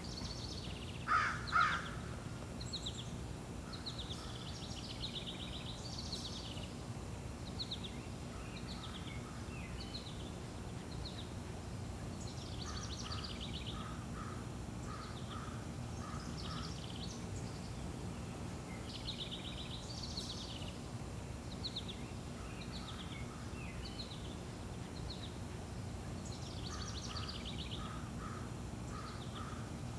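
Several birds singing and calling, with many short chirps and trills throughout and two louder, lower calls about a second in, over a steady low background noise.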